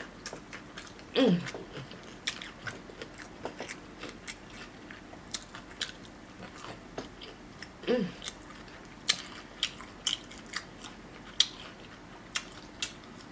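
Person chewing and biting food close to the microphone, with many sharp wet mouth clicks and crunches. There is a short falling hummed 'mm' about a second in and another about eight seconds in.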